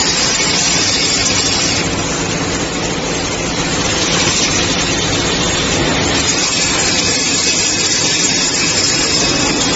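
Steel drum band-making machinery running with a loud, steady mechanical noise and a faint underlying hum.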